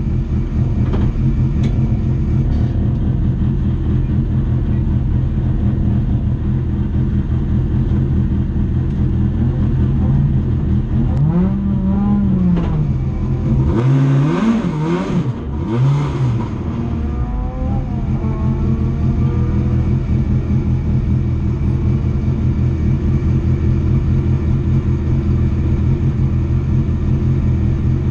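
Race car engine heard from inside the cabin, running steadily, with a few short revs about halfway through.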